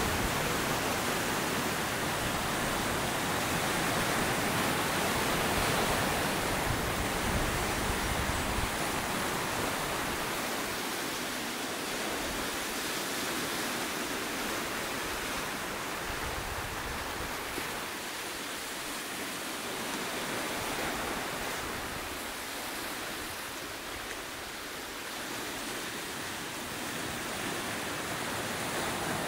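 Ocean surf breaking and washing over rocky ledges, a steady rush of water that is fuller in the first several seconds and eases later.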